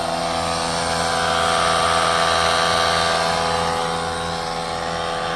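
Steady vehicle hum made of many even tones, with a rush of noise that swells and fades around the middle.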